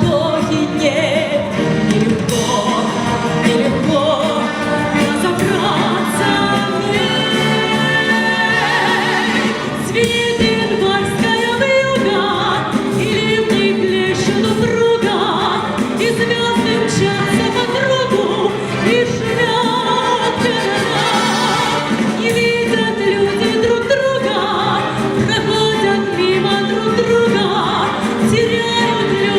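A woman singing a song with vibrato over instrumental accompaniment.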